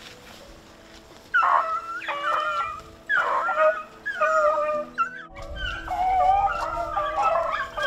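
A pack of rabbit beagles baying: repeated drawn-out bawling cries that start about a second in and overlap more thickly toward the end. This is the hounds giving voice as they run a rabbit's trail.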